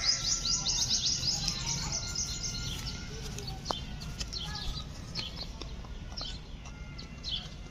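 Birds chirping in the trees, a quick run of high chirps in the first couple of seconds and then scattered chirps, over a low steady rumble.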